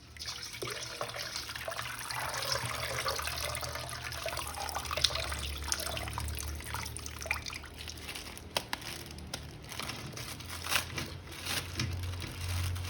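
Water trickling and splashing as a plastic action figure is handled in it, with scattered small clicks and knocks of plastic.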